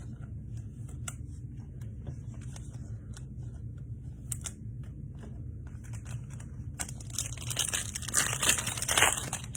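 A foil trading-card pack wrapper being torn open and crinkled, with a dense crackling rustle starting about seven seconds in. Before that, faint light clicks of cards being handled.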